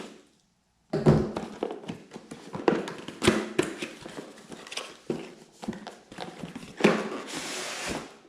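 A box being handled and opened by hand: a quick run of taps, knocks and rustling, with a longer rasp about seven seconds in.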